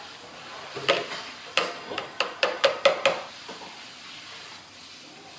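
Ice cream scoop knocking against a container about eight times, the knocks coming faster, as ice cream is scooped and knocked off the scoop.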